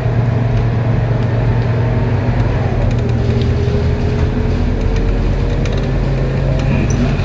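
Interior running sound of a Scania K230UB city bus with a ZF Ecomat 6HP504C automatic gearbox: a steady, loud diesel drone under a fainter gearbox whine. The whine drops in pitch about three seconds in, then climbs slowly as the bus keeps moving.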